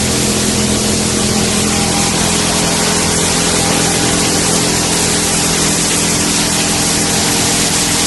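HDPE pipe shredding and washing line running: a loud, even rushing noise with several steady motor hums underneath.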